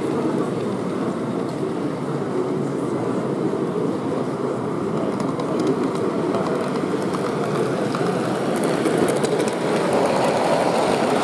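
Model train running along the layout track. It gets a little louder near the end as it passes close, over the steady hum of a busy exhibition hall.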